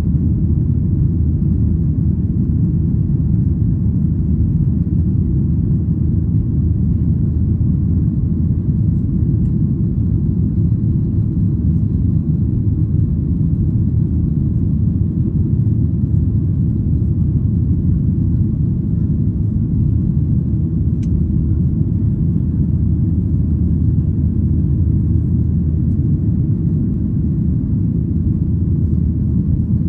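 Steady low rumble of a Boeing 737-800's cabin in flight, heard inside the cabin over the wing: the CFM56-7B engines and rushing airflow.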